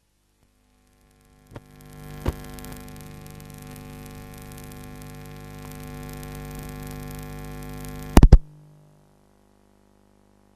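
A steady electronic hum of several held pitches, starting with two clicks about a second and a half in. It is broken near the end by a burst of loud pops, then fades away.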